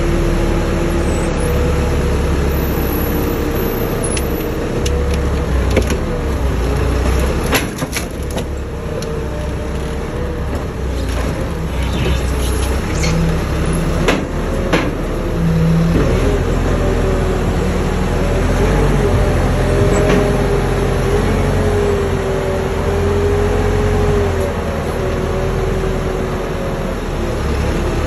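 Forklift engine running steadily under the lift work, with a whining tone that wavers in pitch as the hydraulics move the forks and load. A few sharp metallic clicks come around the middle.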